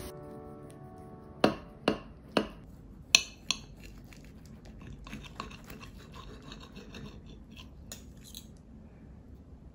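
Knife and fork cutting through a pan-toasted egg-dipped ham and cheese sandwich on a plate: about five sharp clicks and crunches of the crisp toast early on, then quieter scraping and sawing.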